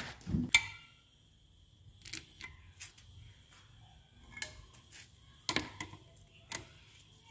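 Sharp metallic clinks, about six of them spaced roughly a second apart, the loudest about two seconds in: steel hand tools and bolts knocking on the metal body of a Yuken A70 piston pump as its cover is bolted down.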